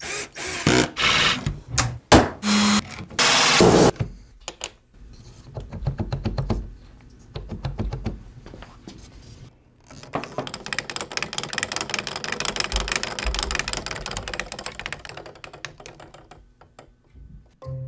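A cordless drill runs in several short bursts, followed by rapid, dense clicking from the wooden gears and ratchet of a hand-wound kinetic sculpture as it is turned by hand.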